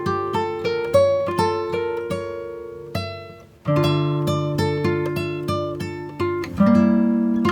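Background music: plucked acoustic guitar picking arpeggiated chords, dying away briefly about halfway through before a new chord comes in.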